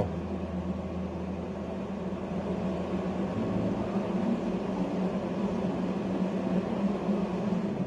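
Steady electrical hum and hiss from a TIG welding machine running between welds. A lower hum drops out about a second and a half in.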